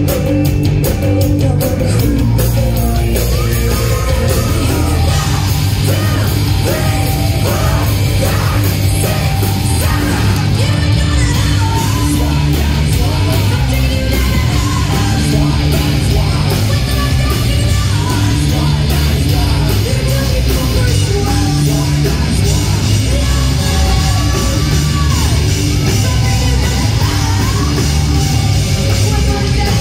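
Live rock band playing loud, with electric guitars, bass guitar and drums, and vocals coming in about six seconds in and running on.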